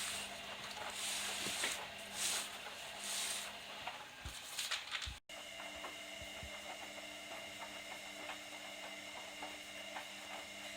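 Candy Optima washing machine running its cotton wash, the drum motor humming steadily. In the first half water whooshes in surges as the drum turns the towels. After an abrupt break about five seconds in, a steadier hum with faint clicking takes over.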